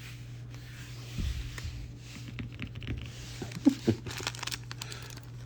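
Trading cards and foil booster-pack wrappers being handled: light rustling and a quick run of small clicks in the second half, over a steady low electrical hum.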